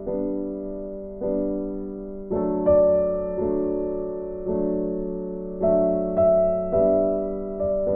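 Background music: a gentle piano piece, chords struck roughly once a second and each left to ring and fade.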